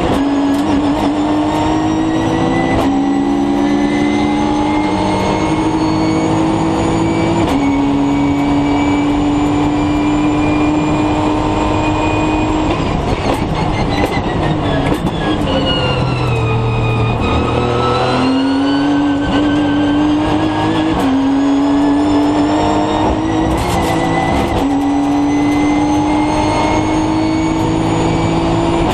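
Nissan GT-R Nismo GT3 race car's twin-turbo V6 heard from inside the cockpit at full throttle, the pitch climbing and dropping at each quick upshift. Midway the engine note falls steadily under hard braking and downshifts, then it picks up again with more upshifts near the end.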